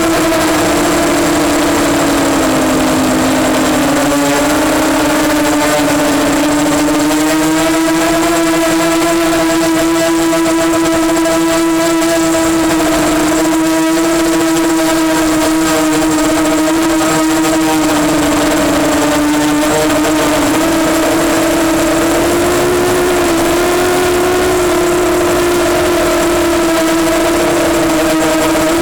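EMax Nighthawk 250 quadcopter's electric motors and propellers whining in flight. The pitch sags and climbs gently as the throttle changes, dipping a few seconds in and rising again near the end.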